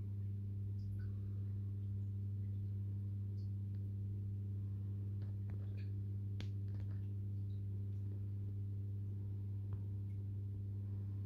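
Steady low electrical hum of an aquarium pump, one unchanging drone with overtones. A few faint clicks come in around the middle.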